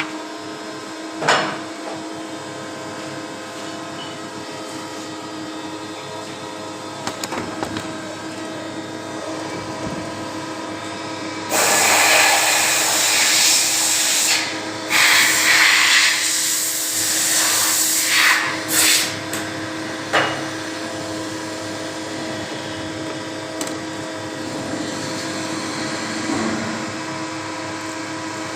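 CNC machine running with a steady mechanical hum. Partway through come several seconds of loud hissing bursts with short breaks, and a shorter hiss before and after them.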